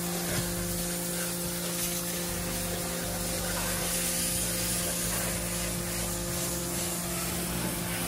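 Steady hiss of water spraying from a hose nozzle, with a machine's even hum underneath, typical of a pressure washer running.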